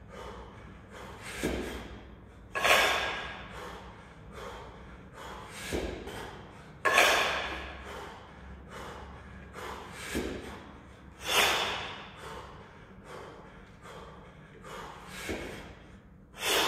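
A man's hard, forceful breathing as he jerks two kettlebells overhead rep after rep. Loud, sharp exhalations come about every four seconds, with quieter breaths between them.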